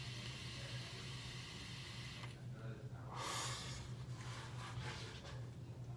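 A person vaping from a pod vape: a long airy draw on the mouthpiece, then a loud breathy exhale of the vapor a little past halfway, followed by softer breaths. A steady low hum runs underneath.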